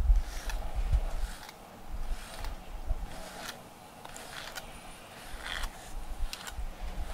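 Deshedding brush with a metal comb blade drawn through a cat's fur: about a dozen short scratchy strokes, one or two a second. Low bumps and rumble sit underneath, loudest right at the start.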